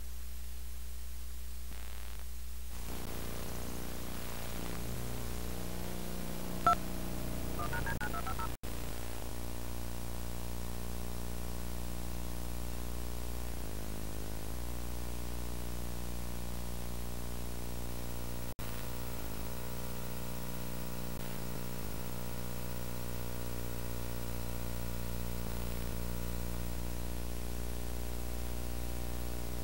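Steady electrical hum with tape hiss from a VHS tape's audio track as the blank start of the tape plays. A short beep and rising chirp come about seven seconds in, and the sound drops out for an instant twice, near nine and nineteen seconds.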